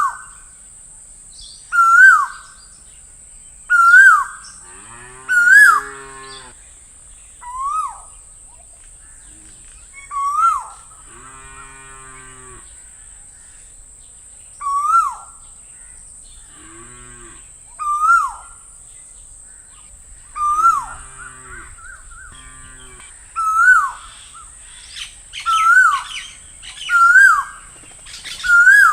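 Asian koel (koyal) calling over and over, each call a quick upward slur that drops back down, about one every two seconds. Several lower, rough animal calls come in between.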